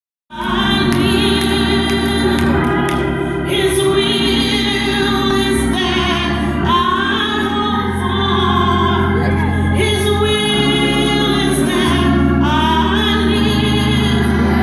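Gospel music with a choir singing over steady bass and keyboard chords, starting abruptly a moment in.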